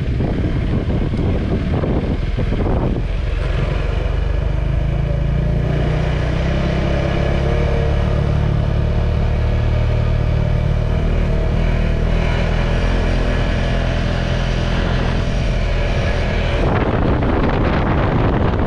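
KTM 390 Adventure's single-cylinder engine running at a fairly steady speed under way, with wind buffeting the microphone near the start and again over the last couple of seconds.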